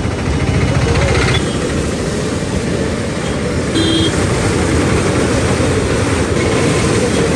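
Muddy floodwater of a swollen river rushing past and churning against a concrete bridge, a loud steady rush.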